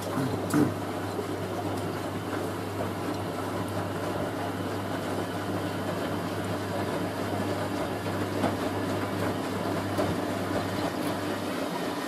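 Hoover A3060 front-loading washing machine doing a distribution drain before its intermediate spin: the drum turns the bedding load over while the drain pump runs with a steady low hum, which drops away near the end. The distribution leaves the load balanced for the spin.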